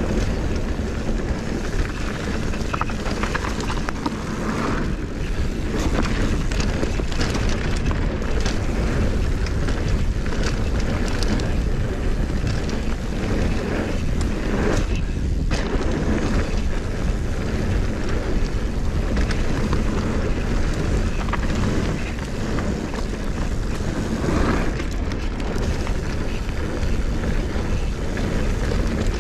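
A mountain bike rolling down a dirt and gravel trail: a steady rumble of tyres on the ground and wind on the camera microphone, with scattered small clicks and rattles from the bike.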